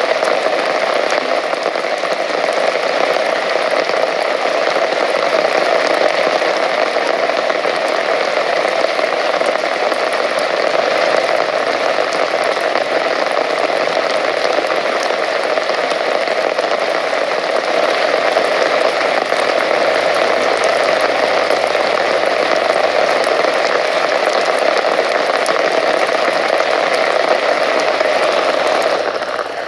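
Steady rain falling, a dense, unbroken wash of drops that eases slightly at the very end.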